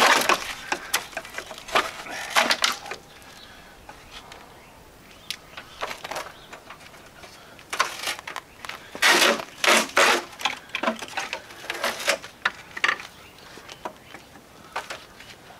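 Hard plastic clattering, scraping and clicking in irregular bursts as a crash-damaged park/turn lamp and headlight assembly is worked loose by hand from a Chevy Suburban's front end. There is a quieter stretch about four to six seconds in.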